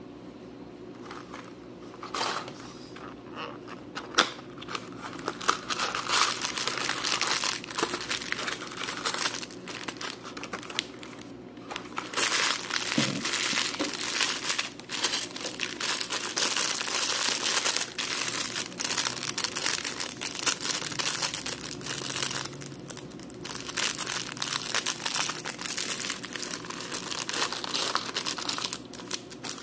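Packaging being opened by hand, mostly a thin plastic parts bag crinkling and tearing, with small plastic bricks clicking against each other. It grows louder about halfway through.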